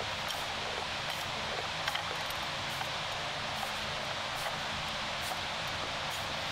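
Steady background noise like a hiss, with faint light clicks every second or so.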